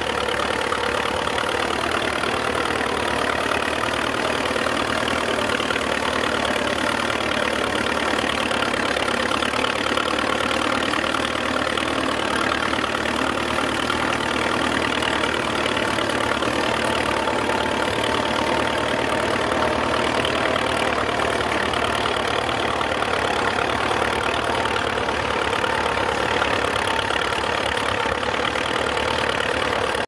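Engine of a vintage steel-wheeled tractor running steadily while it pulls a plough through the soil.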